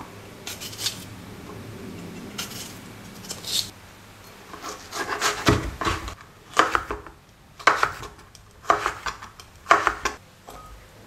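Chef's knife cutting plums: a few soft slicing strokes through fruit held in the hand, then, from about halfway, a string of sharper knocks of the blade chopping down onto a plastic cutting board, roughly one a second.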